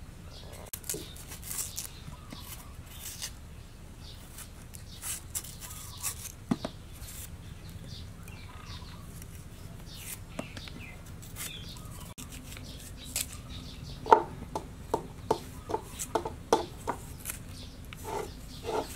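A cleaver shaving the skin off a purple-fleshed tuber in short, irregular scraping strokes. Near the end the strokes come faster and sharper, two or three a second.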